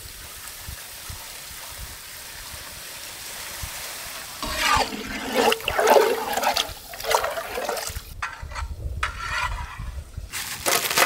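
Water poured into a hot pan of frying vegetables: a steady rushing pour that slowly gets louder, then irregular splashing and knocking from about halfway through as the pan is worked.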